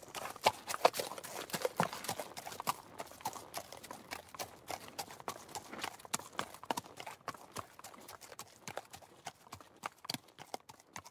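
Horse hoofbeats, a steady clip-clop of hooves on hard ground that slowly fades away.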